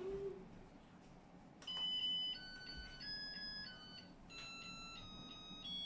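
Electronic rice cooker playing its signal tune: a simple melody of pure electronic beeps, a couple of notes a second, starting about two seconds in.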